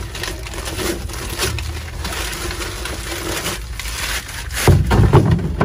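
Plastic bag of dry ice crinkling and rustling as it is handled and emptied, with a few louder thumps about five seconds in as blocks land on the car's bare metal floor pan.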